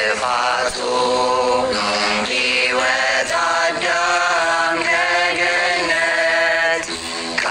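Ethiopian begena hymn (mezmur): a voice sings a slow, chant-like melody in long held lines, with the plucked begena lyre accompanying.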